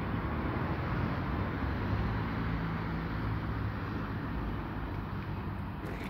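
Steady road traffic noise with a low engine hum.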